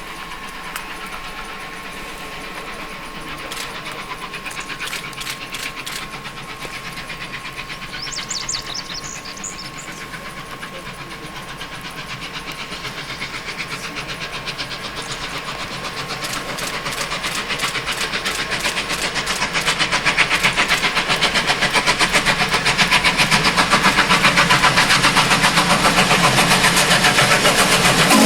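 Union Pacific 844, a 4-8-4 Northern steam locomotive, working hard, its rapid, even exhaust chuffs growing steadily louder through the second half.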